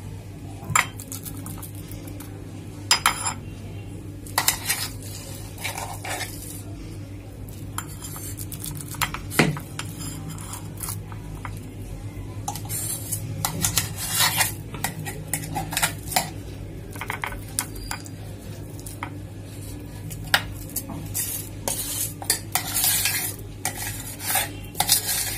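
A metal spoon scraping and clinking against a stainless-steel mixer-grinder jar and a glass bowl while thick, wet masala paste is scooped out, making irregular clinks and scrapes. A steady low hum runs underneath.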